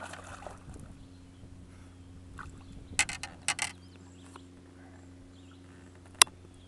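A smallmouth bass lifted by hand out of the water beside a bass boat: a short splash at the start, a few quick knocks and rattles about three seconds in, and one sharp knock near the end, over a steady low hum.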